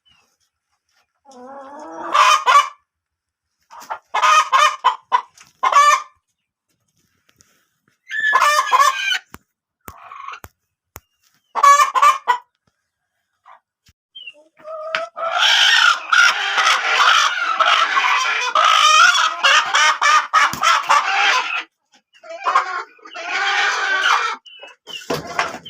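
Chickens clucking and squawking in short bursts, then a long stretch of loud, dense cackling from several birds from about fifteen to twenty-one seconds in.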